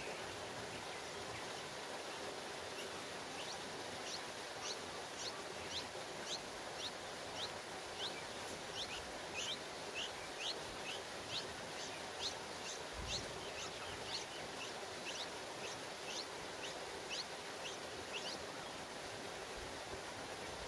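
Bulbul nestlings begging as an adult feeds them at the nest: a rapid series of short, high chirps, about two a second, that starts a few seconds in and stops shortly before the end. Under the chirps is a steady outdoor hiss.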